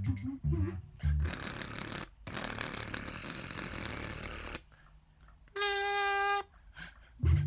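Soundtrack sound effects between bits of plucked-string music: about three seconds of rough noise with a short break, then a single buzzing tone lasting under a second.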